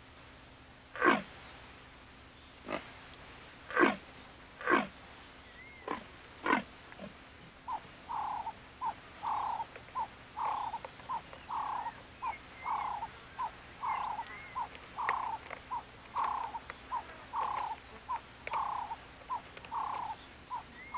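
Leopard calling: a few separate calls that fall in pitch, then from about eight seconds a steady series of calls, about two a second, alternating short and longer ones.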